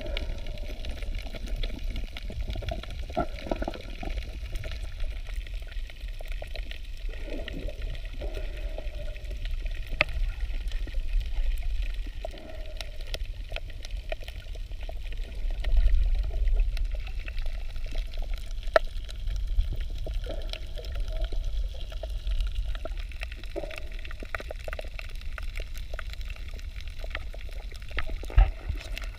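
Underwater ambience picked up by a submerged camera over a coral reef: a steady low rumble of moving water with a few sharp clicks scattered through it.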